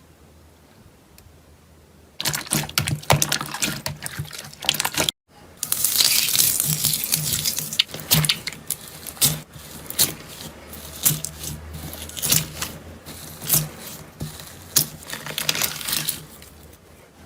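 Slime being squished and stretched by hand: wet squishing with many sharp clicks and pops. It starts about two seconds in, breaks off briefly after about five seconds, then goes on as denser crackling.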